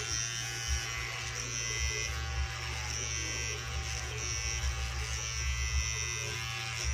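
Electric hair clipper buzzing steadily while it is run through hair, cutting it.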